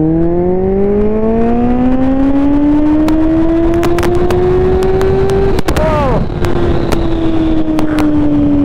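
Kawasaki Z750R's inline-four engine pulling hard under acceleration, its note climbing steadily for about five seconds. It breaks off briefly, then carries on at a steady, slightly falling pitch. Sharp crackles from the helmet microphone sound throughout.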